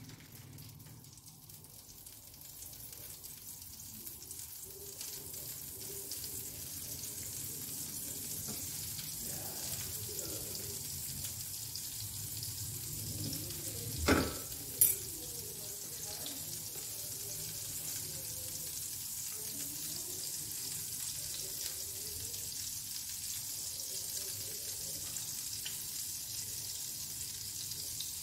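Butter melting and sizzling in a nonstick frying pan on a gas burner, the sizzle building slowly as the pan heats and then holding steady. Two sharp knocks sound about halfway through.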